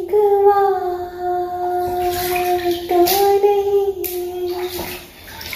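A child singing a few long held notes at a nearly steady pitch, with short breaks between them.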